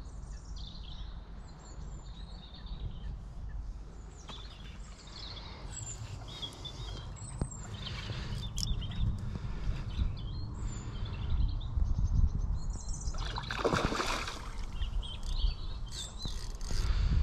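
Small birds chirping and singing over a steady low rumble of wind on the microphone, with a louder rush of noise about three-quarters of the way through.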